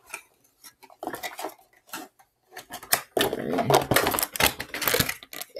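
Rustling and clattering of a boxed HO scale model passenger car and its packaging being handled: scattered clicks, then a louder dense stretch of rustling and knocks near the end.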